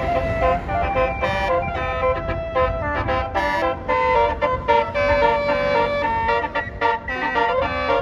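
Bus Basuri telolet horn playing a tune of quick, stepping notes over a low engine rumble.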